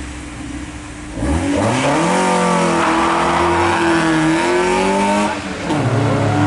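A race car's engine at a low idle, then revving sharply about a second in as the car launches off the start line, held at high revs as it accelerates away. Just after five seconds the note drops briefly, then a steady engine note comes back.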